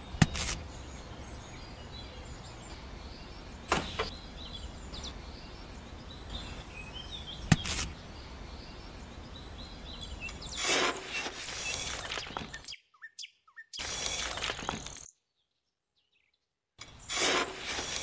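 Tiny metal shovel scraping into a pile of small gravel stones, in two rustling bouts about two thirds of the way through and near the end, with birds chirping in the background. Three sharp clicks come in the first eight seconds, the first as a small aluminium plate is set down, and the sound drops out entirely for about two seconds before the last bout.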